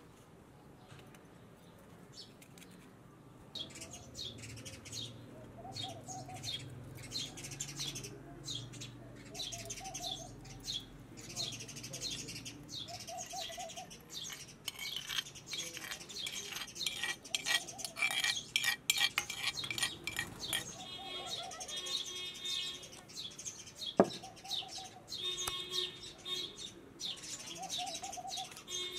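Many small birds chirping rapidly, thickest in the second half, with a lower short call repeating every few seconds. A single sharp tap about three-quarters of the way through is the loudest moment.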